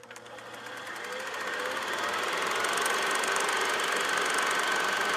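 A fast, steady mechanical rattle with a high whine, fading in over the first couple of seconds.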